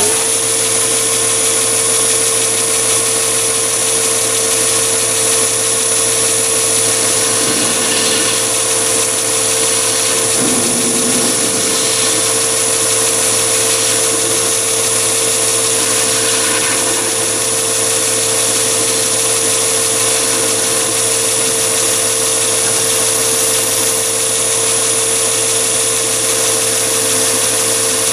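Mini metal lathe running steadily at about 835 rpm with a constant high motor whine, its four-jaw chuck spinning while the thread undercut is turned on an aluminium part.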